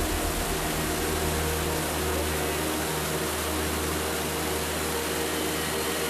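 Steady rushing roar of the Großarler Ache torrent plunging as a waterfall through a narrow rock gorge, with a low rumble underneath.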